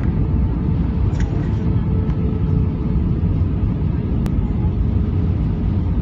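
Steady low rumble of an airliner's engines and airflow heard inside the cabin, with a faint steady hum over it and a single sharp click about four seconds in.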